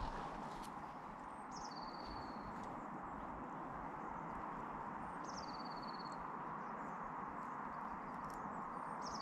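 A small songbird singing the same short song three times, a high note dropping into a fast trill, over a steady background rush.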